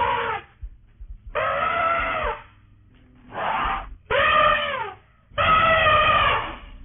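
Elephant calf calling: five high cries, each up to about a second long, each falling in pitch at its end.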